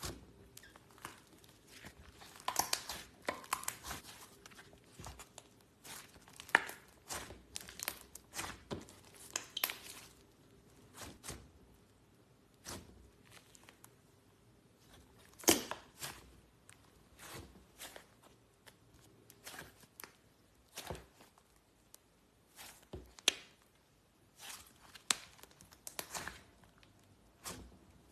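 Slime being squeezed and stretched by hand, giving irregular sticky pops, clicks and crackles with short pauses between them.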